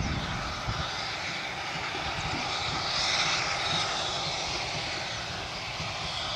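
Steam locomotive working its train toward the station, a steady rushing sound of exhaust steam over a low rumble, swelling slightly about three seconds in.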